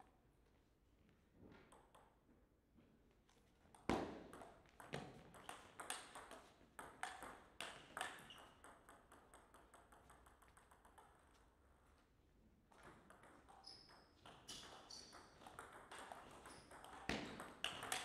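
Table tennis rally: the celluloid-type ball clicks sharply off the rubber paddles and the table in quick succession. After a pause of a few seconds, a second rally follows.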